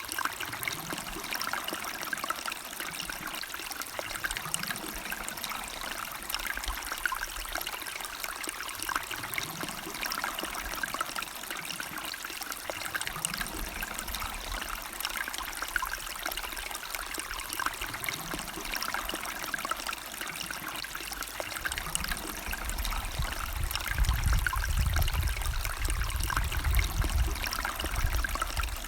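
River water flowing and trickling steadily over stones. A low rumble swells in the last few seconds.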